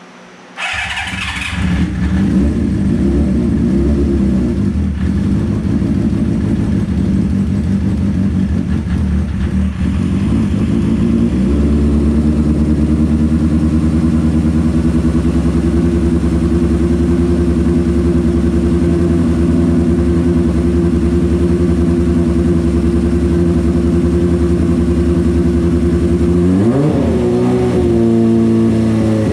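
Honda CB550's air-cooled inline-four engine starting on the electric starter after a top-end gasket job. It catches about a second in and runs roughly at first, then about eleven seconds in settles into a steadier, slightly louder idle. Near the end it is revved once, the pitch rising and falling.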